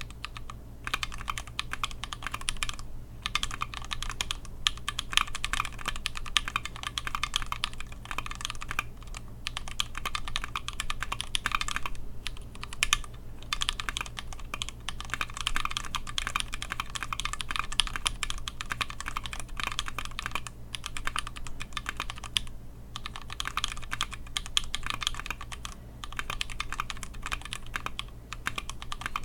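Continuous typing on a Tofu 60% mechanical keyboard with Holy Chickies switches: a rapid, steady stream of key clacks, broken by a few brief pauses. A faint low hum runs underneath.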